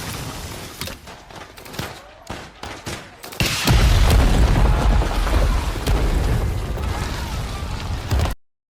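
War-film battle sound of gunfire: scattered shots at first, then about three and a half seconds in a heavy volley of gunfire and explosions over a deep rumble, which cuts off suddenly near the end.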